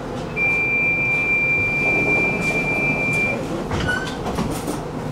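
Prague tram in motion with a steady running rumble, joined for about three seconds by a clean, high-pitched steady tone, then a few clicks about four seconds in.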